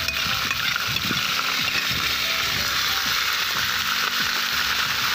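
Sauerkraut sizzling as it fries in a hot cast-iron kazan, with a metal skimmer scraping and knocking against the bowl and the pot as the cabbage is pushed in and spread.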